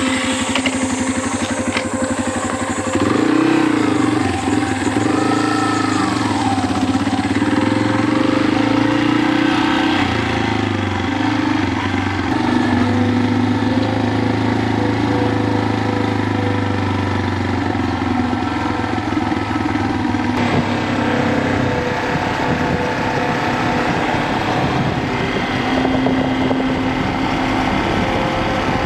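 Yamaha Serow 250's air-cooled single-cylinder four-stroke engine running steadily under way. Its pitch rises and falls a few seconds in as the engine is revved and shifted.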